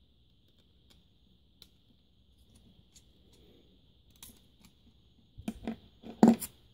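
Faint clicks of a precision screwdriver working the tiny screws of a Sony MiniDisc Walkman's metal chassis and circuit board. A few louder knocks and clatter of handling the player and tools come near the end. A faint steady high whine sits underneath.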